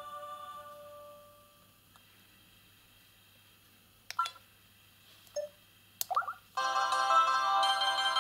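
Samsung SGH-Z130 mobile phone ringtone melody dying away, then a few short key beeps and clicks. About six and a half seconds in, the next ringtone melody starts.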